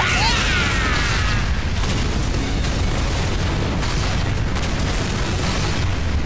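Cartoon battle sound effects: a blast of fire breath with falling, screeching tones in the first second or so, then a long, steady explosion rumble with a heavy low end.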